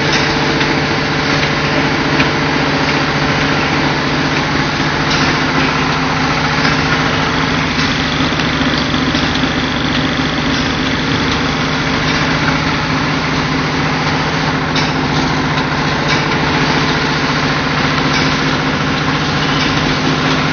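Shrink-sleeve bottle labeling machinery and conveyors running: a loud, steady mechanical hum with a few faint clicks.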